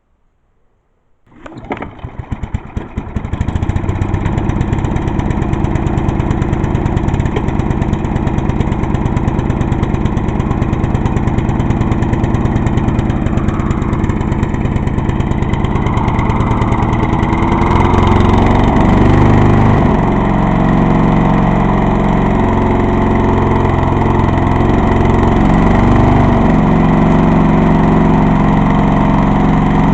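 Vintage Craftsman lawn mower's small engine starting about a second and a half in, catching and settling into a steady run. Past the middle its speed wavers up and down for several seconds before steadying again.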